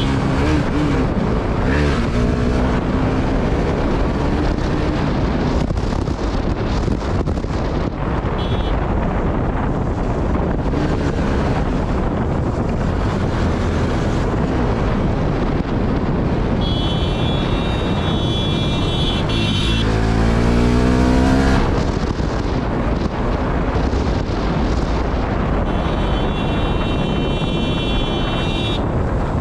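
Motorcycle engine under way with wind rushing over the microphone; the engine pitch rises through the revs at the start and again in a hard acceleration about twenty seconds in. Two long steady high tones sound over it, one just before the acceleration and one near the end.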